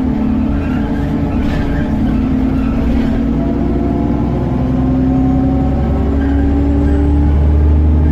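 Alexander Dennis Enviro400 double-decker bus heard from inside, its engine and drivetrain running steadily. In the second half the note rises slowly and grows louder as the bus accelerates.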